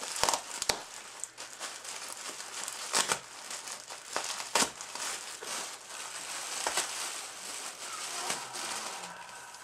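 Plastic bubble wrap crinkling and rustling as hands work it open, with a few sharp crackles, the loudest about three and four and a half seconds in.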